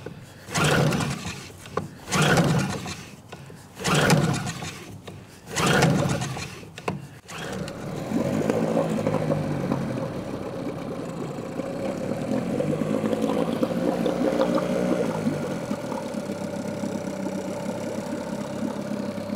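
A small Johnson two-stroke outboard being pull-started: about four hard rips of the recoil starter cord without starting, then the engine catches about eight seconds in and settles into a steady run. It took several more pulls than it did on its first start.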